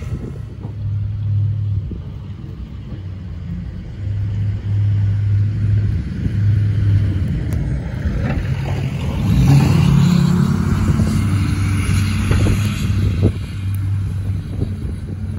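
Snowplow truck's engine running with a low rumble, growing louder about ten seconds in.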